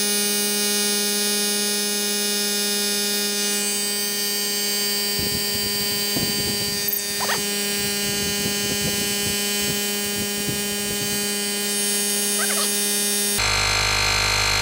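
Cordless tire inflator's small compressor running with a steady hum, pumping a car tire up toward its preset 42 PSI. Its sound changes suddenly near the end, as the gauge reaches 42.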